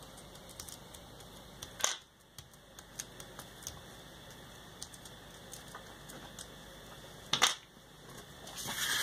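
Hands pressing and smoothing a glued paper cutting onto a sheet of thick paper: faint scattered taps and paper rubs, two sharper knocks about two seconds and seven and a half seconds in, and a swelling rustle of paper near the end.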